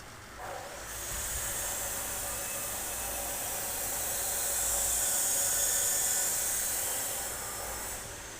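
A loud steady hiss with a faint motor whine under it. It starts about a second in, swells, then cuts off near the end, and the whine falls in pitch as it stops.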